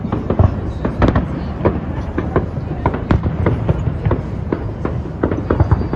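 Fireworks going off in a display: a rapid, irregular run of sharp bangs and crackles, several a second, over a steady low rumble.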